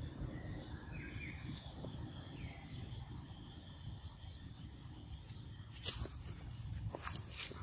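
Outdoor insect chorus: a steady high buzz of insects such as crickets over a low rumble, with a short high chirp about a second in and a few sharp clicks or rustles near the end.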